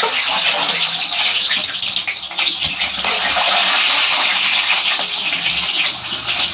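Whole boiled eggs frying in hot oil in a kadhai, a steady sizzling hiss.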